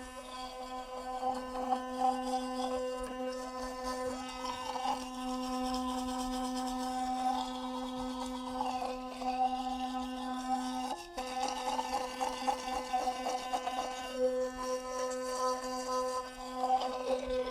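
Electric toothbrush motor buzzing steadily while brushing teeth, the scrubbing against the teeth changing the sound as it moves. The buzz breaks off briefly about eleven seconds in.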